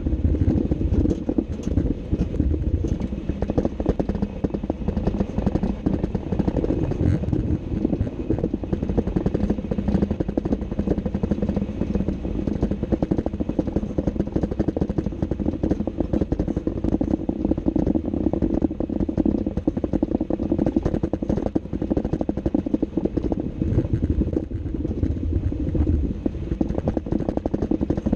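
Underside of a Jeep Wrangler JK on the move: a steady low rumble of tyres, drivetrain and wind with constant rattling, where the owner is chasing a grinding noise.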